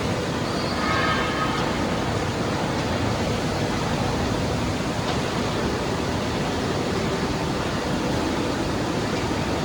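Steady rushing noise from the running electroplating line's equipment, with a brief high-pitched squeal about a second in.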